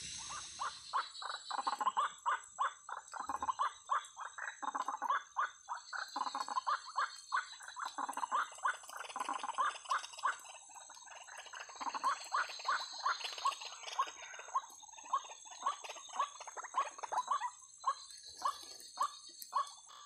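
Rapidly repeated calls of white-breasted waterhens (ruak-ruak), about two to three a second, breaking off briefly near the end. A steady high-pitched whine runs underneath.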